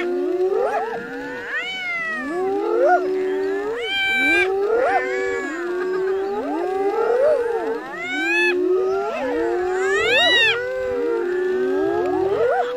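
Spotted hyenas calling over one another: many overlapping whoops that rise and fall in pitch, a few sweeping much higher, without a break. The clan is massed around lions feeding on a kill.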